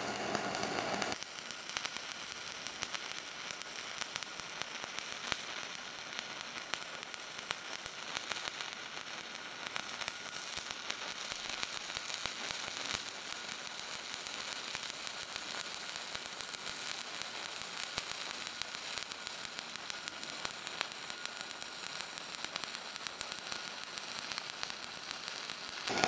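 Stick-welding arc (shielded metal arc welding) burning steadily as an electrode runs a bead along a plate: a continuous hiss with many small rapid pops. It starts about a second in.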